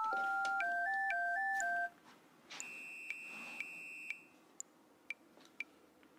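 A short electronic jingle of pure beeping notes in two parts, stepping up and then bouncing back and forth, ending about two seconds in. Then a steady high electronic beep held for about a second and a half, and a few faint ticks.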